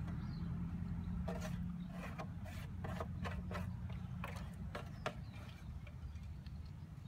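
Fingers scraping wet, rotted grass silage off a plastic tray into a plant pot: a run of short scrapes and soft clicks, mostly in the first five seconds, over a steady low rumble.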